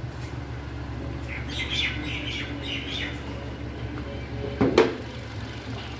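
Hyundai Santro's four-cylinder petrol engine idling with a misfire, the sign of a blown head gasket letting coolant into the cylinders and oil. Birds chirp for a couple of seconds in the middle, and a single sharp knock comes near the end.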